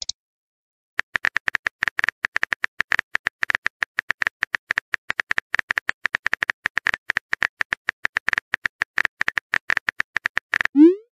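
Smartphone keyboard typing clicks as a text message is typed out: a quick, uneven run of short clicks that starts about a second in and stops just before the end.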